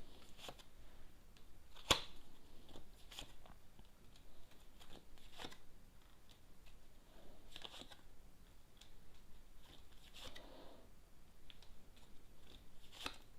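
Tarot cards being handled, shuffled and laid down: scattered sharp clicks and brief soft rustles of card stock, the sharpest click about two seconds in.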